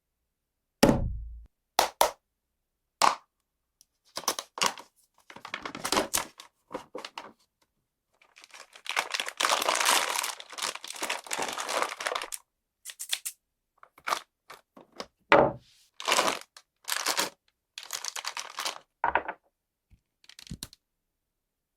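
One Piece figures being handled and knocked: a series of separate sharp knocks and clacks, the first one the loudest and heaviest. About eight seconds in comes a longer stretch of rubbing and rattling that stops about four seconds later.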